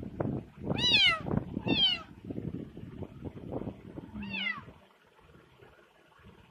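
Kitten meowing three times, each high cry rising and falling in pitch, with rustling and bumps from being held and handled.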